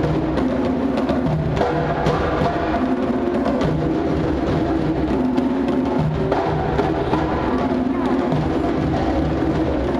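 Percussion-driven music with a steady drum beat and sharp wood-block-like clicks over a low melody line that moves in steps.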